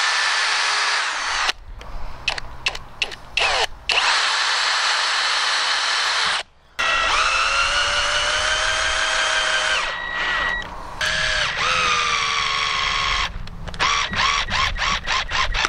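Cordless drill-driver working in old oak: drilling pilot holes, then driving brass screws through the mortice deadlock's brass faceplate. It runs in several spells of a few seconds, with a steady pitched motor whine while driving and short stop-start trigger bursts between spells and near the end.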